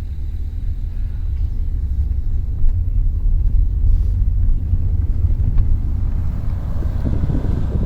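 Wind buffeting the microphone: a loud, uneven low rumble that grows gustier near the end.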